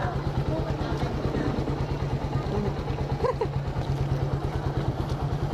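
Suzuki Raider 150R's single-cylinder four-stroke engine idling steadily in neutral, a quick even putter, with a child's voice briefly about three seconds in.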